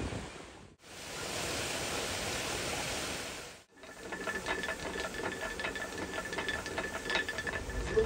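A steady rushing hiss, then a stone grain mill turning: its feed chute clatters against the running millstone in fast, even clicks over a thin steady whine.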